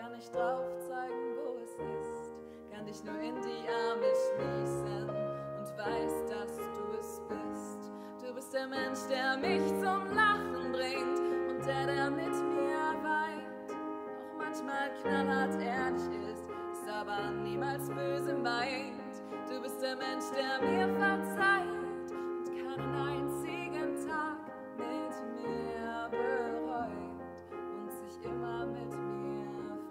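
Grand piano playing a slow ballad accompaniment, with a woman's singing voice coming in about nine seconds in and carrying wavering held notes over the piano.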